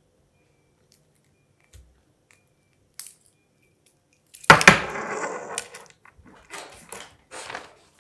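Objects being taken off and put down on a desk: a small click, then a loud knock about halfway through with a rattling tail, followed by several shorter scraping, rustling noises.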